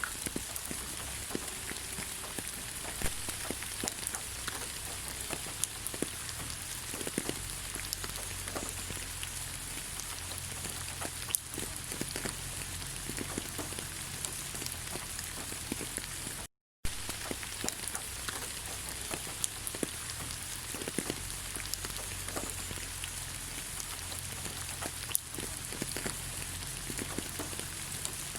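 Steady rain falling on leaves: a dense hiss with many separate drops tapping. A split-second gap of silence breaks it a little past halfway.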